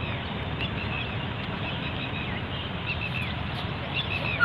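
Small birds chirping over and over in short calls, over a steady low outdoor background rumble.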